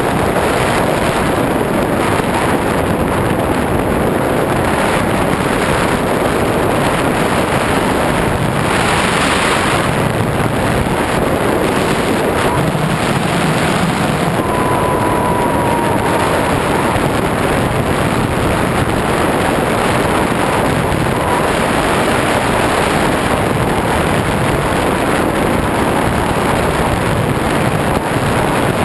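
Steady, loud rush of wind over the onboard camera microphone of an RC FPV plane in flight. It swells briefly in the upper range about nine seconds in.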